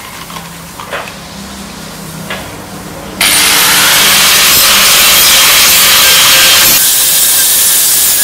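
A few light knocks, then about three seconds in an angle grinder with an abrasive disc bites into a rusty steel panel and grinds steadily and loudly, stripping rust and old paint.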